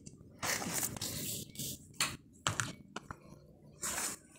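Kitchen utensil handling: a few short scraping swishes, about half a second in and again near the end, with light knocks in between.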